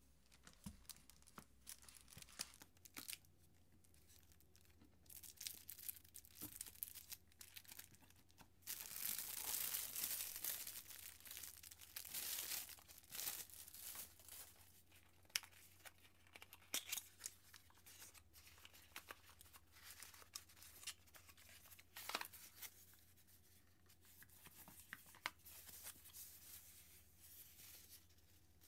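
Plastic packaging crinkling and rustling as it is handled, pulled and torn open, with scattered light clicks and taps of small boxes and a case. The rustling is thickest from about nine to fourteen seconds in.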